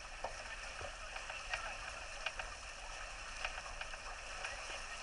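Water rushing and hissing along the hull of a Laser 4000 sailing dinghy under way, with sharp splashes of spray now and then.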